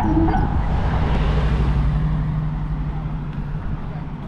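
Road traffic: a car passing close by, its tyre and engine noise swelling about a second in and then fading, over a steady low rumble.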